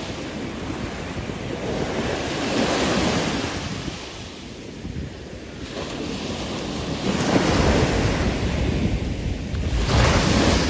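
Wind buffeting the microphone over the sound of open sea waves, with no engine or animal calls. It gusts louder about three seconds in, and again with a low rumble from about seven seconds and near the end.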